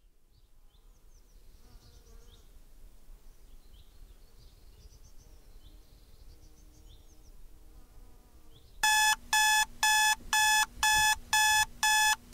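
Faint high chirps over a low hiss, then about nine seconds in a digital alarm clock starts beeping loudly, about two beeps a second.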